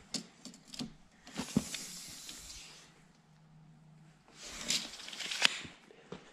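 Steel tape measure being pulled out and then let run back in: two rasping runs of about a second each with small clicks. The second run ends in a sharp snap as the tape case closes.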